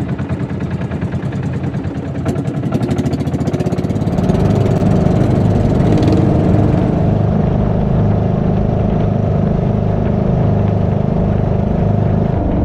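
Motorboat engine running steadily, getting louder about four seconds in.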